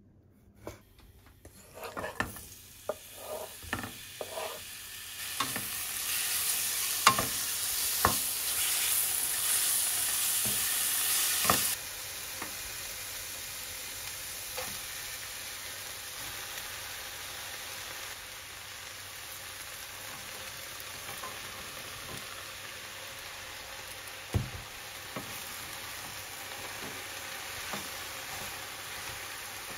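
Diced chicken breast sizzling in a frying pan, the hiss loud at first and cutting off abruptly about twelve seconds in. Then a quieter steady sizzle as chopped cabbage, green pepper and carrot are stirred in the pan with a wooden spatula, with occasional knocks of the spatula against the pan, one louder one near the end.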